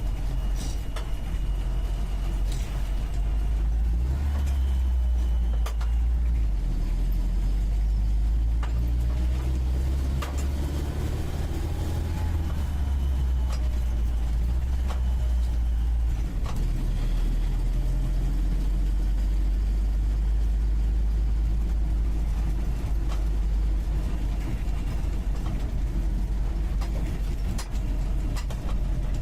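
UAZ 469B's four-cylinder petrol engine heard from inside the cab while driving, its note rising and falling with the throttle, up around ten seconds in and easing off at about sixteen seconds. Occasional short knocks and rattles from the body over the rough track.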